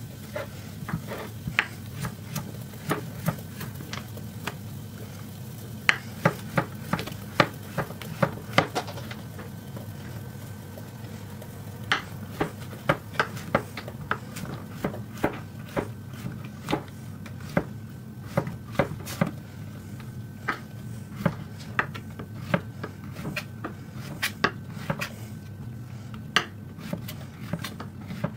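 Chef's knife slicing a zucchini into rounds on a wooden cutting board: a string of sharp knocks as the blade meets the board, irregular, coming in quicker runs at times. A steady low hum sits underneath.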